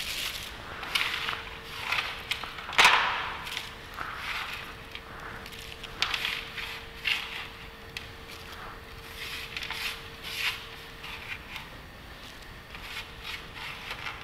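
Thin polythene bag crinkling and rustling while shelled groundnuts are picked off a tray and dropped into it, in irregular small clicks and rustles, with one sharper click about three seconds in.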